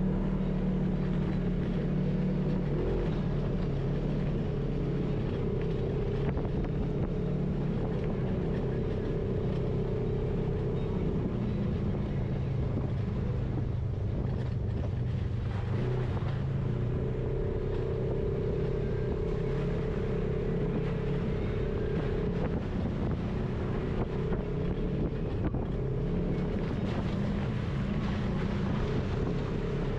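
Side-by-side UTV engine running steadily while driving along a dirt trail, its pitch easing down about three seconds in and rising again a little past the middle as the throttle changes.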